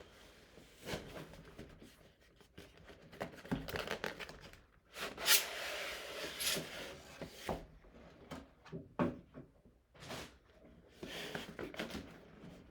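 A cardboard model-aircraft box and its packaging being handled and opened by hand: irregular taps, scrapes and clicks, with a longer rustling, tearing stretch about five to seven seconds in.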